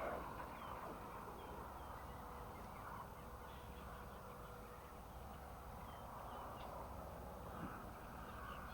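Faint bird calls, short scattered chirps over a low, even outdoor hiss.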